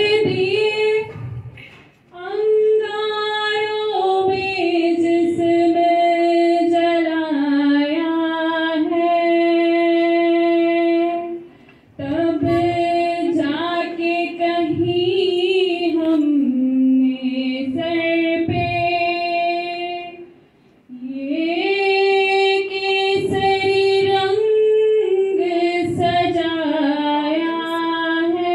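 A young woman singing a slow song into a microphone, holding long notes, with acoustic guitar accompaniment. The phrases break off briefly about 2, 12 and 20 seconds in.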